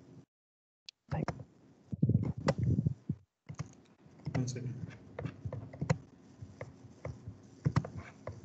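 Scattered clicks and taps, like keyboard and mouse use, mixed with faint muffled voices over a video-call line. The audio cuts out completely twice in the first few seconds.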